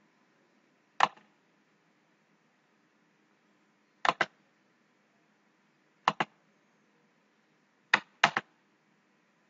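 Computer mouse button clicks: a single click about a second in, then quick double clicks (press and release) near four, six and eight seconds in, as menu items are selected.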